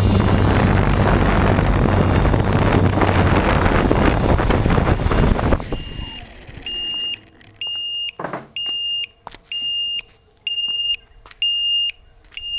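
Hexacopter's electric motors and propellers running with wind on the microphone, cutting off abruptly about six seconds in as it touches down. An electronic piezo buzzer on the craft beeps steadily throughout, about one beep every 0.8 s, standing out loud and clear once the motors stop.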